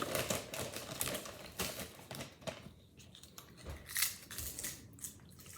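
Water being poured from a measuring cup into a small plastic slime-kit container, with quick clicks and rustles of the plastic being handled. The sound is busiest in the first couple of seconds and then thins out to scattered clicks.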